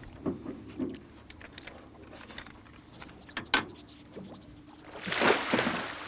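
Scattered light knocks and clicks of handling on the boat, then a loud splash about five seconds in as a hooked walleye thrashes while being scooped out of the water in a landing net.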